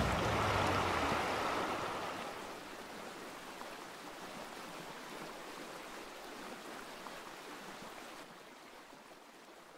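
Rushing, splashing water from a motorcycle ploughing through a stream, fading away steadily over several seconds.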